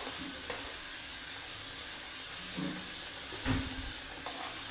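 Malpua batter frying in hot vegetable oil in a kadai, a steady sizzle. A low thump sounds about three and a half seconds in.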